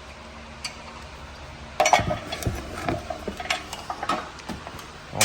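Clinking and knocking of metal exhaust parts and tools being handled, starting about two seconds in after a quiet stretch, with some brief ringing.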